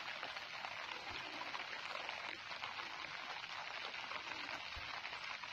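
Light rain falling on the water of a small ditch and the grass along its banks: a steady, even hiss with no let-up.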